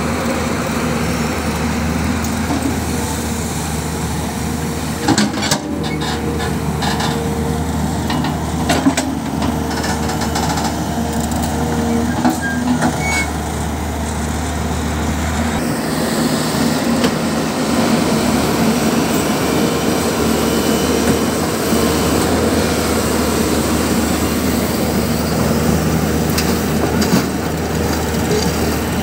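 Diesel engines of a crawler excavator and farm tractors running steadily, with a few knocks as earth and stones drop from the excavator bucket into a tractor trolley. About halfway through the low engine note changes, and a tractor engine is heard pulling a loaded trolley.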